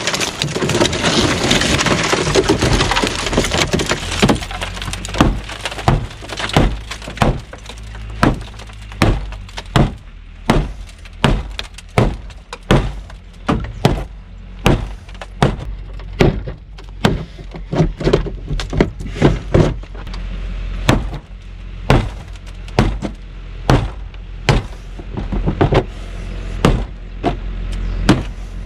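Shattered car side-window glass crunching and breaking up for the first few seconds as it is pushed out by hand. Then an Ontario SP-53 bolo knife is stabbed again and again into the car's sheet-metal door: sharp, evenly paced impacts, a little more than one a second.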